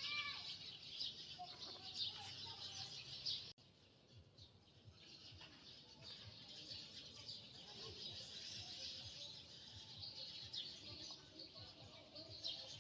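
Faint, continuous chirping of birds, with a sudden break about three and a half seconds in before the chirping resumes.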